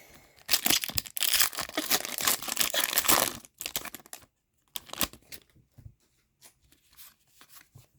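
A foil hockey card pack wrapper being torn open and crinkled for about three seconds, followed by a few faint rustles and clicks of cards being handled.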